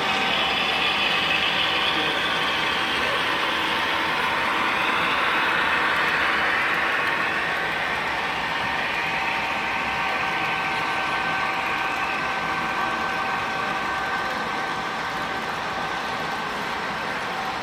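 HO-scale model diesel locomotives hauling a freight train along the layout track: a steady mechanical running sound with a faint steady whine. It eases a little after about seven seconds.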